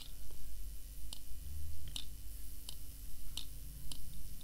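Computer mouse clicking: about six short, sharp clicks at uneven intervals of under a second, as sliders are grabbed and released.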